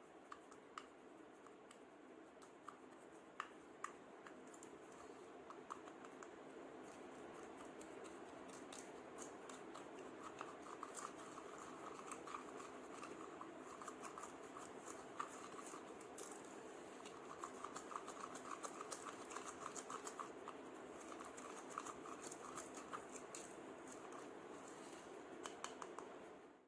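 Faint scratching and rustling with many small scattered clicks: sand being mixed or handled, with a steady low hiss underneath.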